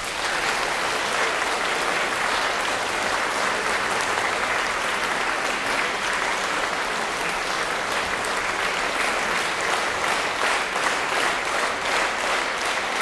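Audience applauding steadily; in the last few seconds the clapping falls into a rough rhythm.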